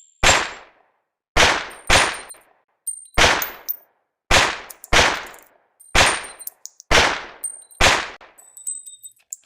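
Smith & Wesson 22A .22 pistol firing about nine separate shots, irregularly spaced at roughly one a second, each with a short echoing tail. Faint high metallic pings ring between the shots.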